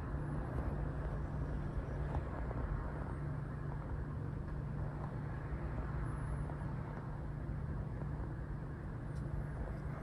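Steady low rumbling background noise with no distinct events.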